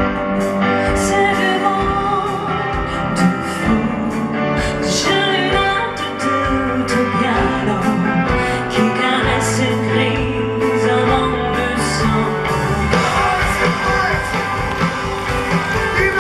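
Live pop duet: a singing voice with vibrato over a full band, with cymbals keeping the beat.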